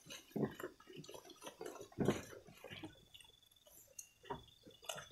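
Goats feeding on a pile of fresh leafy branches: irregular crunching, tearing and rustling of leaves as they bite, pull and chew, with a louder crunch about two seconds in.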